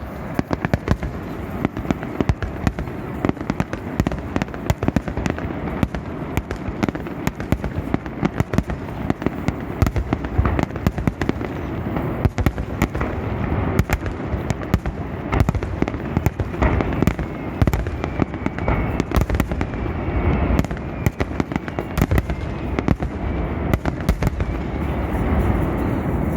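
A fireworks display: a dense run of bangs and crackles, several a second, over a continuous low rumble, without a break.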